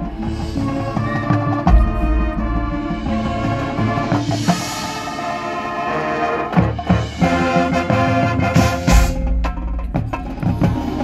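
Marching band playing: brass chords held over front-ensemble mallet percussion and timpani, with deep low hits about two seconds in and again near the end.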